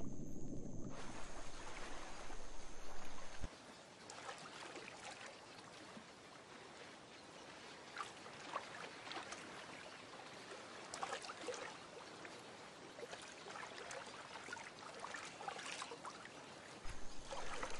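A low rumble cuts off suddenly about three and a half seconds in. Then come faint, scattered small splashes and drips as a wading snowy egret's feet move through shallow water.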